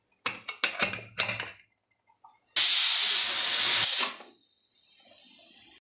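Aluminium stovetop pressure cooker letting off its third whistle, a sign it has come up to pressure. A few light clicks come first, then a couple of seconds in a sudden loud hiss of steam jets from the vent weight for over a second and drops to a softer hiss.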